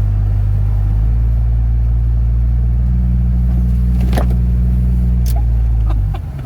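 Off-road truck's engine working steadily as it drives through snow, a loud low drone that steps up about a second in and eases off just before the end. A few brief knocks or clicks about four and five seconds in.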